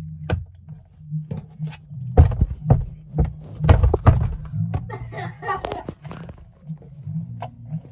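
Handling noise on a phone's microphone: irregular knocks and thuds as the phone is moved about inside a cramped box, over a low rumble, with a brief muffled voice about five seconds in.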